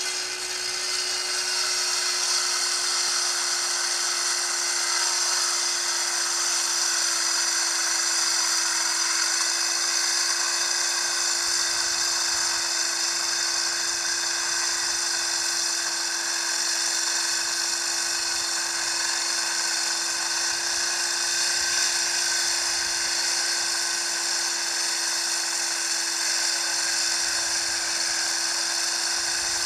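Worm-drive circular saw with a diamond blade running and cutting concrete steadily, a loud high-pitched whine, over the steady hum of a shop vacuum pulling the dust through a shroud on the saw. The saw comes in right at the start.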